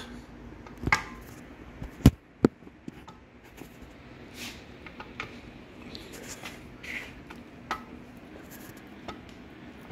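Light metallic clicks and knocks, two sharp ones about two seconds in, then faint scattered ticks. This is the clutch pedal linkage and throw-out bearing release fork of a 1953 Allis-Chalmers B being worked by hand, with no return spring fitted yet.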